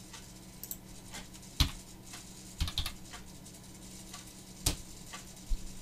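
A few separate sharp clicks from a computer keyboard and mouse as a number is typed in, spread irregularly, with the loudest about one and a half seconds in.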